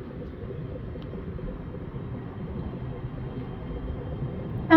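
Steady low rumble of a long container freight train rolling through the station. Right at the end comes one short train-horn toot.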